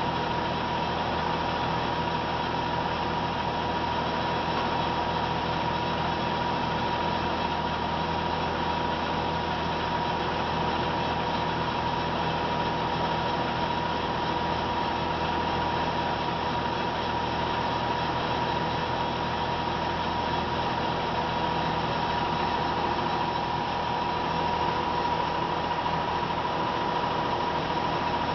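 Molins Mk8 cigarette-making machine running at steady speed: a continuous mechanical whirr with a constant high whine and a low hum.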